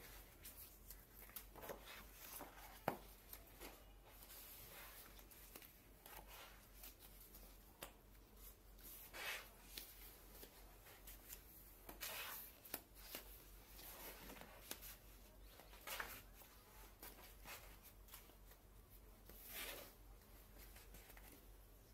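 Faint rustling and swishing of heavy non-woven wallpaper sample pages being turned by hand, a soft swish every few seconds, with one sharp tick about three seconds in.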